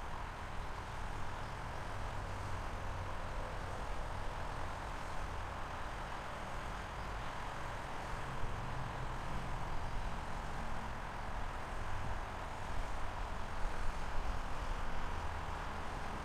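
Steady vehicle rumble with a hiss over it, even throughout with no distinct horn, bell or impact.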